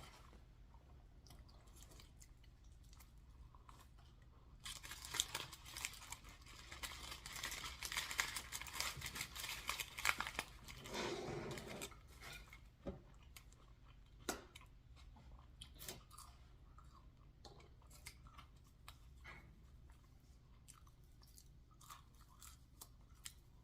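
Close-miked eating: biting and chewing food, with a dense run of crunching from about five to twelve seconds in, then quieter scattered mouth clicks and chews.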